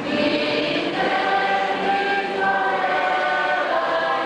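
A group of voices singing together in harmony, holding long notes that change every second or two.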